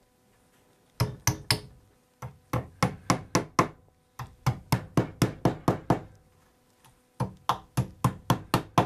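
Upholstery tack hammer driving tacks through an edge roll into a chair's wooden seat frame: quick runs of taps, about five or six a second, in four bursts with short pauses between.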